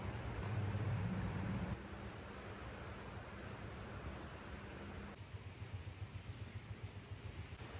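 Insects trilling in a steady high-pitched chorus, joined later by a fast, evenly pulsed chirping, over a low rumble. The ambience changes abruptly twice.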